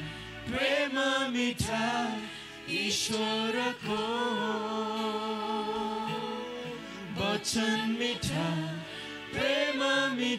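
A slow worship song: a voice singing drawn-out phrases, with one long held note in the middle, over soft sustained instrumental backing.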